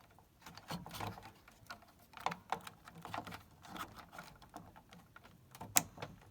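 Irregular small clicks and taps of hands and a screwdriver working at the oven's circuit board as it is fitted and screwed back in at its corners, with one sharper click near the end.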